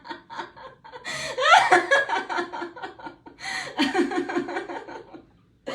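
A person laughing in several fits of quick, pulsing bursts, with no words. A musical note is struck right at the end.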